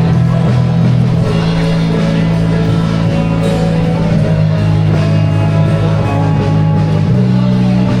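Background music with guitar, in a rock style.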